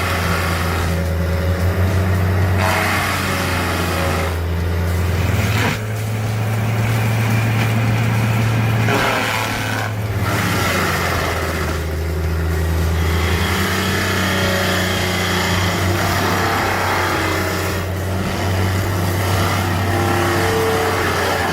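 Heavy machine's engine running and revving under load, its steady low drone changing pitch and level abruptly several times, as at about six and ten seconds in.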